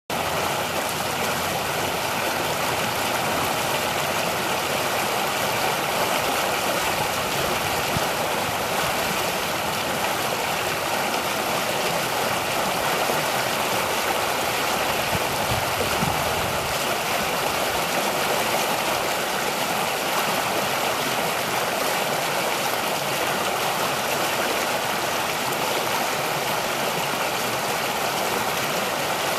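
Creek water rushing and splashing over submerged branches and a rock: a steady, even rush of running water.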